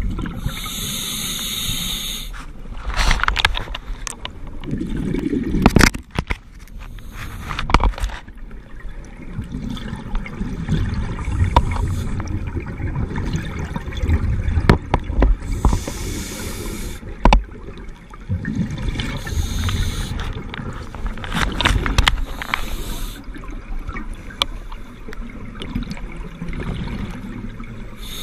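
Underwater camera recording of scuba breathing: a few bursts of exhaled regulator bubbles hissing over a steady low rumble of water and handling noise, with some sharp knocks on the camera housing.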